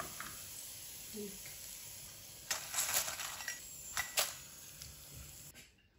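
Steel slotted skimmer clinking against the frying pan several times, a few sharp clinks between about two and a half and four seconds in, over a faint steady hiss of frying oil.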